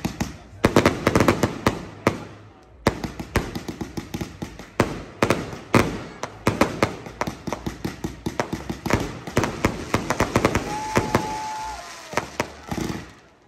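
Display fireworks going off in rapid volleys: dense strings of sharp bangs and crackles, with a brief lull about two seconds in. A short high whistle sounds about eleven seconds in.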